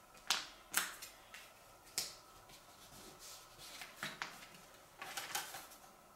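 Sheets of thin wood veneer being slid, pressed and shuffled by hand on a workbench: a series of short scrapes and rustles, with a quick cluster of them near the end.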